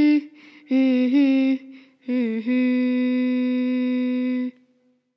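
A girl humming a melody unaccompanied: two short phrases, then one long steady note that stops about four and a half seconds in.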